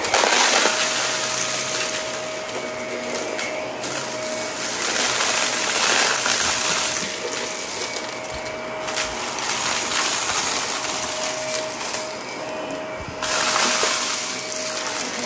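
Shark Navigator upright vacuum running over carpet with a steady motor whine, its brushroll crunching small hard debris that rattles and clicks up through the machine.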